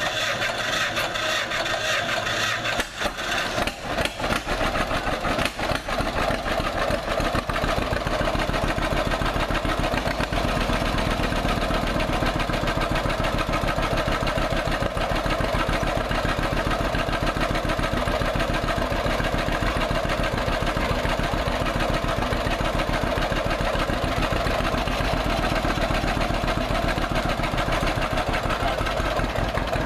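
1951 John Deere Model B two-cylinder tractor engine running. It fires unevenly for the first several seconds, then settles into a steady idle.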